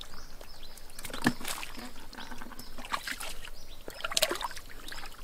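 Hands sloshing and splashing through shallow muddy water while groping in the mud for fish, in irregular small splashes, a little louder about a second in and again near four seconds.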